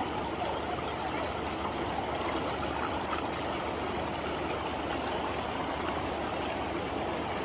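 Steady rush of a fast-flowing mountain stream, a continuous wash of running water.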